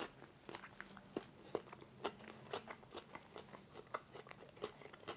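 A person chewing a crisp mouthful of fresh cucumber, in faint irregular crunches a few times a second.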